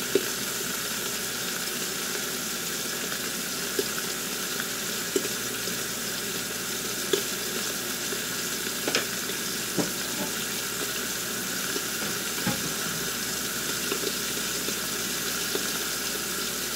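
Steak frying in butter in a frying pan under a loosely set glass lid: a steady sizzle with scattered sharp pops.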